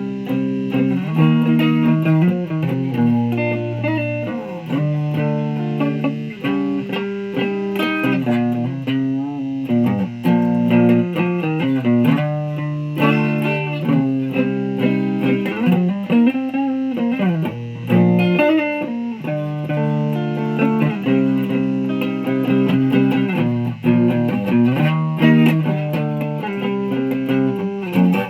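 Electric guitar playing sustained, overlapping notes, the pitch changing every second or so.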